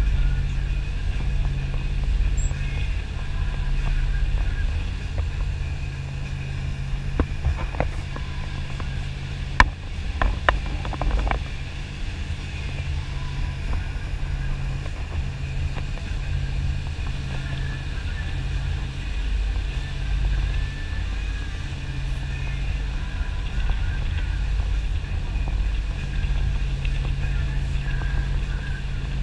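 Cabin cruiser running at speed: a steady low engine drone with rushing wind and water from the hull's wake. A few sharp knocks cluster about ten seconds in.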